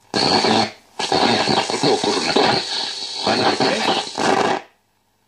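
De Wald model 310 valve radio's loudspeaker playing a tuned station, the sound cutting out abruptly about half a second in, returning, and cutting out again near the end. The sudden drop-outs are the sign of a false contact, an intermittent connection in the set.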